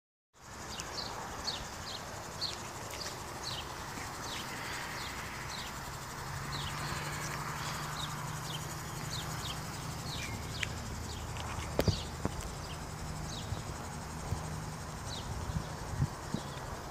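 Birds chirping over and over, short falling chirps about two a second, over a low steady hum through the middle of the stretch. There is one sharp knock about two-thirds of the way through.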